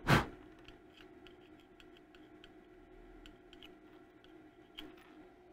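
A short loud rush of noise at the very start, then faint, scattered light clicks and scratches from a circuit board being handled and prodded with a small tool.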